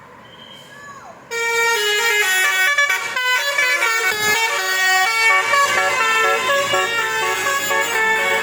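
Basuri telolet horn playing a melody: loud stepping notes with several pitches sounding together, starting abruptly about a second in.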